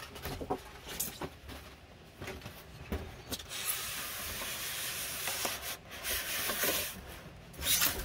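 White polystyrene foam packaging rubbing and sliding against a cardboard box as it is worked out: a few short scuffs and taps, then a long, steady rubbing hiss from about three and a half seconds in until near the end.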